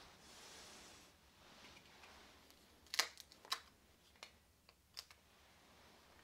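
A faint, quiet room, then small sharp snaps and clicks about three seconds in, with a few more over the next two seconds. These are a priest breaking and handling the large altar host over the paten and chalice.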